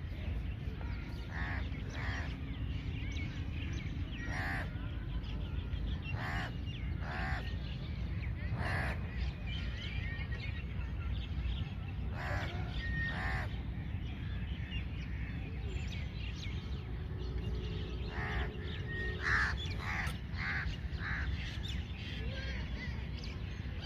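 Birds calling in the background, short calls repeated every second or two, often in pairs, over a steady low rumble of outdoor background noise.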